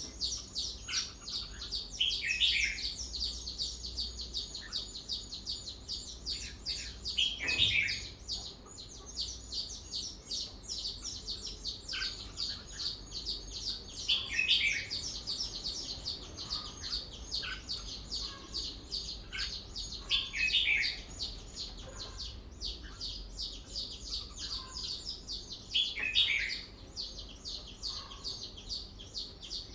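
Red-whiskered bulbul singing short, loud phrases about every six seconds, over a continuous rapid high-pitched chattering of birds.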